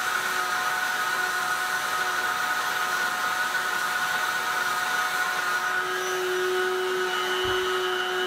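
Heat gun running steadily, its fan blowing hot air onto a plastic part to soften it. About six seconds in its steady hum changes, and a soft knock follows as the gun is set down on the bench.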